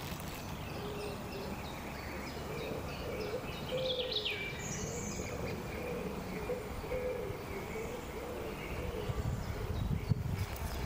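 Woodland birds chirping and calling, with a quick falling call about four seconds in, over steady low background noise.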